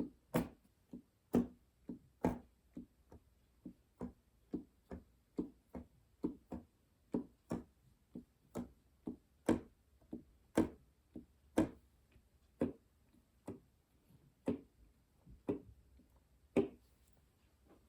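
Key action of a Yamaha NP-35 Piaggero digital keyboard being pressed and released: a run of short clacks and thumps, about two a second, uneven in loudness, with no notes ringing on. The action is noisy on the upstroke as the keys spring back.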